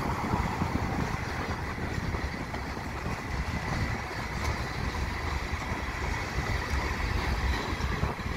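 Freight cars of a mixed freight train rolling past: a steady rumble of steel wheels on the rails.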